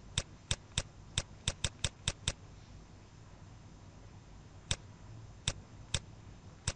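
Computer mouse button clicking as words are handwritten on screen with the mouse, each pen stroke a press and release. There is a quick run of about nine sharp clicks, a pause of about two seconds, then four more spaced clicks, over a faint hiss.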